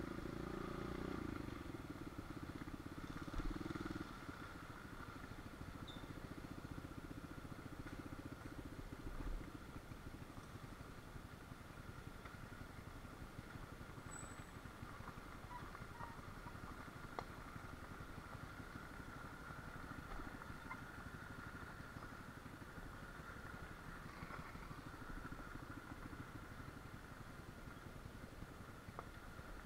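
Small dirt bike engine running at a low, steady level. It is louder for the first four seconds or so, then drops off to a fainter steady hum.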